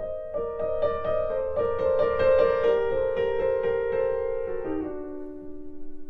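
Background piano music: a gentle melody of held notes over a soft low accompaniment, moving to lower notes near the end.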